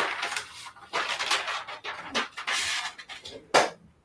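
Rustling of a sheet of paper being handled and put up against a wall, in a series of uneven bursts, with one sharp tap about three and a half seconds in.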